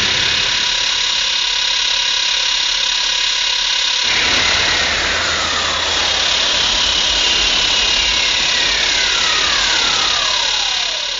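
Synthetic monster sound effect: a dense steady hiss. About four seconds in, a low rumble enters, and several falling whistle-like tones sweep downward one after another, fading out at the end.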